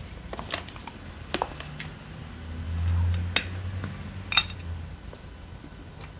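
Metal engine parts and hand tools clicking and clinking in separate sharp taps while being handled. A low hum swells for about a second and a half around the middle.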